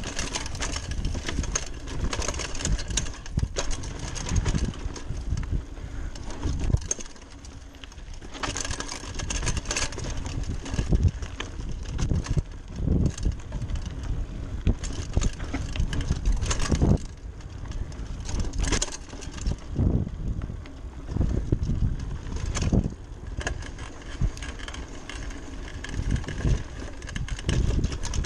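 Giant Talon 3 29er hardtail mountain bike rolling fast down a dirt singletrack: a continuous rumble of tyres on dirt, with the bike rattling and knocking over roots and rocks throughout.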